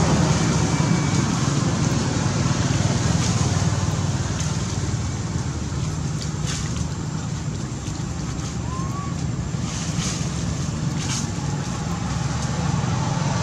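Steady low rumble of background noise, with a few faint clicks and one brief high rising squeak about nine seconds in.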